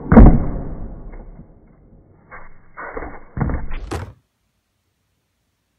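Toy projectile launcher firing: a loud sharp bang as the shot strikes, fading over a couple of seconds, then a few more knocks and a clatter ending in a crack. The sound then cuts off suddenly.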